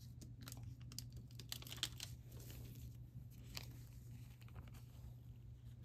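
Faint crinkling and crackling of paper being peeled off a crumpled aluminium-foil kitchen litho plate, as scattered short crackles that thin out after about three and a half seconds.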